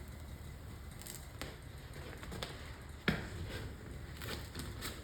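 Scattered light clicks and taps of hands handling a vinyl stripe on a car's body panel, with one sharper knock about three seconds in, over a steady low hum.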